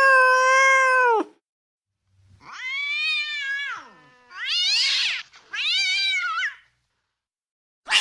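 Angry cat yowling: one long drawn-out yowl that breaks off about a second in, then three shorter yowls that slide down in pitch, and a short harsh burst at the very end.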